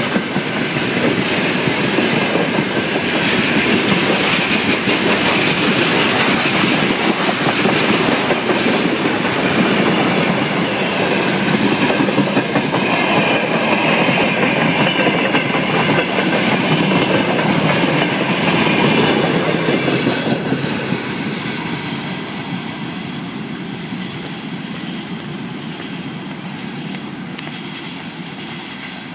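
Freight train of gondola wagons and container flat wagons rolling past close by, its wheels clattering steadily over the rail joints. The clatter fades from about two-thirds of the way through as the end of the train passes and it moves away.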